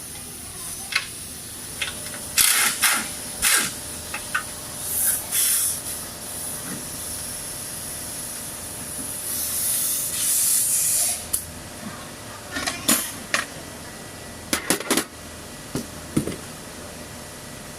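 Scattered sharp clinks and knocks of hand tools and car parts being handled while a steering rack is taken out, over a steady high hiss. A longer, louder hiss swells up about ten seconds in.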